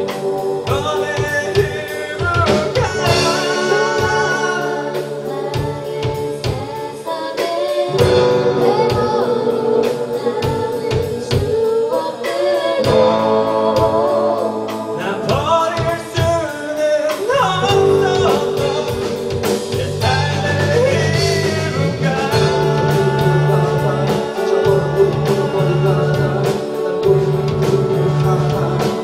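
Live rock band playing a song: a lead singer over guitar, bass and drums.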